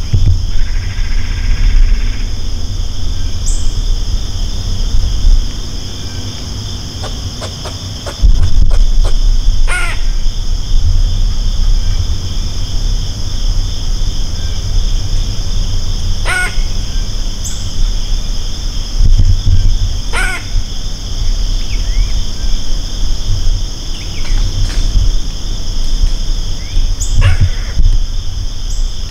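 Steady high-pitched drone of woodland insects, with four short harsh calls spread through it and a low rumble of wind on the microphone underneath.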